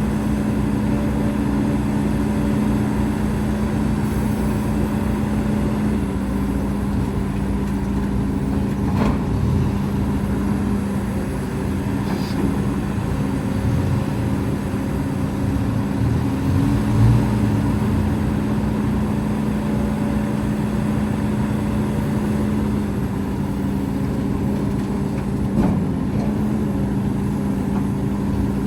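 Heavy earthmoving machinery's diesel engine running steadily with a constant hum, dipping slightly in pitch about six seconds in, with a few sharp knocks scattered through.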